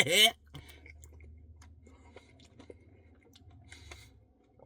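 Faint close-up eating sounds: small wet clicks and chewing of a soft-serve Blizzard with Reese's Pieces and cookie dough, over a low steady hum. The tail of a sung phrase cuts off just at the start.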